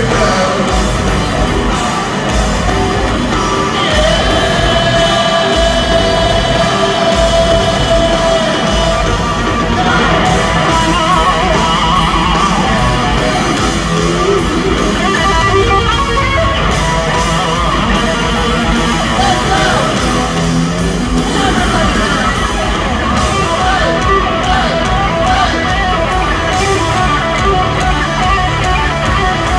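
Live heavy metal band playing loud, heard from the arena crowd: distorted electric guitars over drums and bass, with a long held note about four seconds in.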